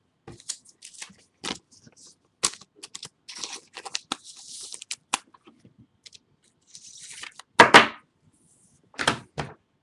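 Trading cards and plastic packaging being handled: irregular crinkling, rustling and sharp clicks, loudest in two short bursts near the end.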